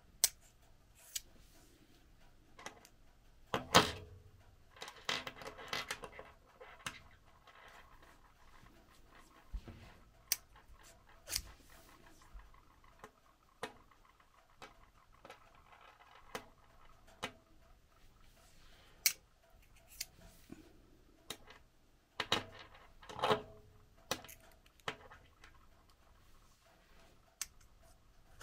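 Small metal handling sounds from a screwdriver, a plastic magnetizer/demagnetizer block and loose steel screws on a wooden table: scattered light clicks and taps, with two longer rattling scrapes, about four seconds in and again about twenty-three seconds in, as the steel shaft is worked through the block.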